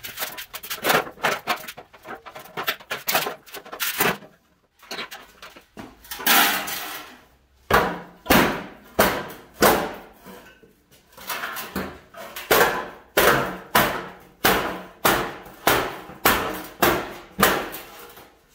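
Rusty sheet-steel classic car fender being stomped flat on a concrete floor to rough out its dents: a regular run of heavy metallic thumps and bangs, about two a second, in the second half. Earlier the panel clanks and scrapes quickly as it is bent and shoved by hand.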